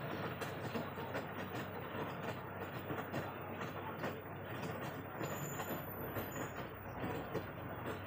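LG front-loading washing machine in its wash cycle: the drum turning with water and laundry tumbling and sloshing inside, over a steady low hum, with many small irregular clicks and knocks.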